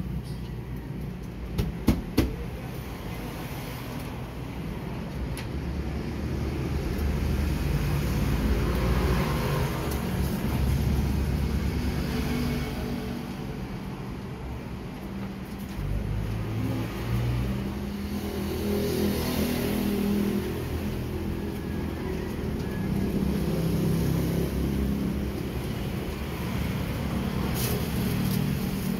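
Road traffic going by: a steady low rumble of passing cars that swells and fades. Two sharp clicks sound about two seconds in.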